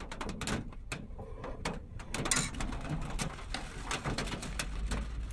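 Eating from a small bowl of hot porridge: irregular light clicks and taps of a spoon against the bowl, with a short noisy slurp-like sound about two seconds in.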